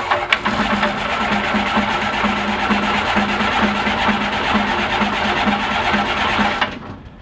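Electric starter cranking a Kitfox's Rotax 912S flat-four engine with full choke and the ignition off, turning it over without firing to prime it. It runs with an even rhythmic pulse for about six and a half seconds, then stops suddenly.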